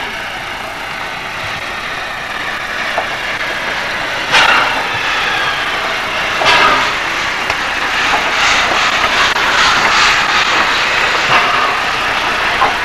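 Steam locomotive with its train running slowly past at close range: a continuous running noise with several short louder bursts, about four seconds in, again two seconds later and toward the end.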